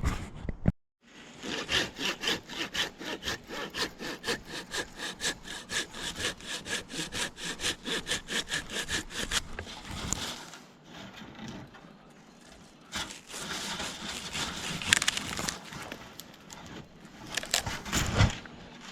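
Handsaw cutting through wood in fast, even strokes, about four a second, stopping about nine seconds in. Softer scraping and a few knocks follow.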